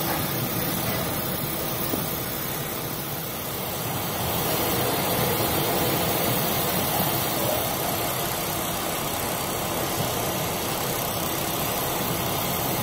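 Steady rushing noise aboard a container ship driving through a storm sea: wind and breaking waves blended with the low running hum of the ship. It grows a little louder about four seconds in.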